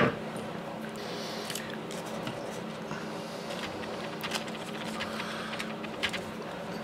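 Hands handling a pinball solenoid coil and its paper wrapper: faint rustling and a few light clicks, with one sharp metallic click at the very start, over a steady low hum.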